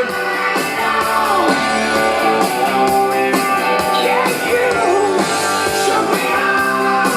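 Rock music with singing and guitar playing loud and steady through a stereo receiver and tower speakers.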